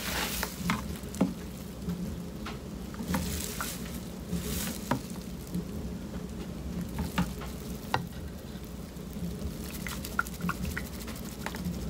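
Sweet almond oil being measured out from a plastic jug into a plastic measuring cup and tipped into a glass measuring jug: scattered light clicks and taps of handling, with brief rustling hisses, over a steady low hum.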